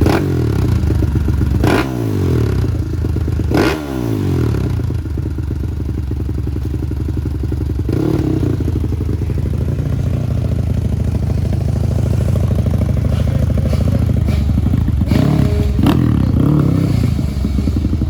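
Four-stroke trail motorcycle engine idling. The throttle is blipped three times in the first four seconds, the revs dropping back after each. It then runs steadily at idle, with a couple of short revs near the end.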